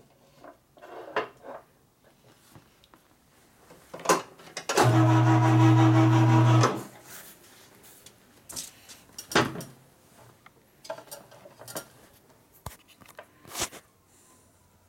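Scattered clicks and knocks of parts and gear being handled on a workbench. About five seconds in comes a loud, steady, low buzz lasting about two seconds.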